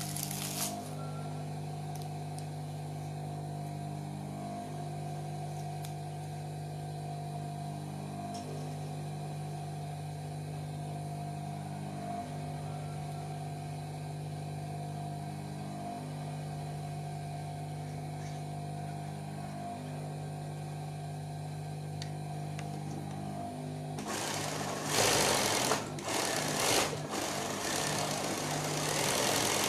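Industrial sewing machine with its motor humming steadily, with a slight regular pulse about every four seconds. Near the end the machine starts stitching free-motion embroidery through a hooped cloth: a loud mechanical rattle that surges a few times, then runs on steadily.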